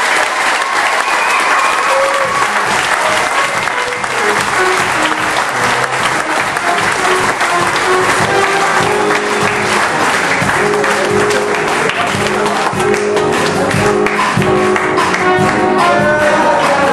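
Audience applauding, with music playing along that grows clearer in the second half.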